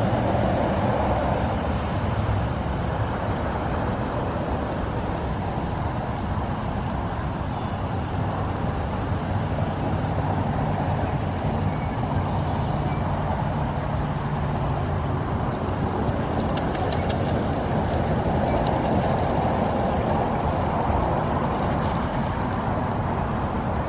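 Steady road traffic noise, a continuous low rumble with no distinct events.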